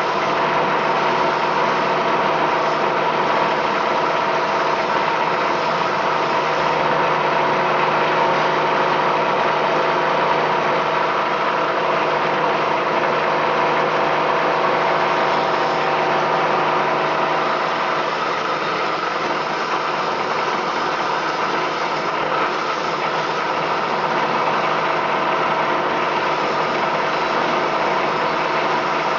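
PP/PE plastic film agglomerator running steadily while plastic film is fed into its drum, its high-speed rotor churning and shredding the film. A constant loud machine hum with several steady tones.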